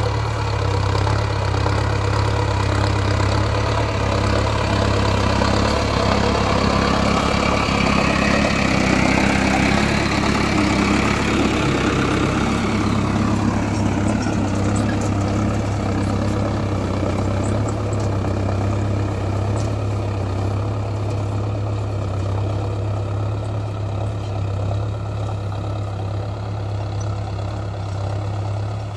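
Mahindra Arjun Novo 605 DI-i tractor's four-cylinder diesel engine running steadily under load, pulling a seed drill through ploughed soil. It grows louder as the tractor passes close by about halfway through, then fades as it moves away.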